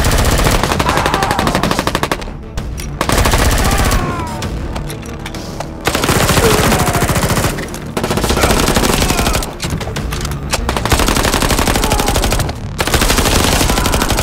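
Rapid automatic-gunfire sounds for Nerf blasters in a mock battle, coming in long bursts of one to three seconds with short breaks between them.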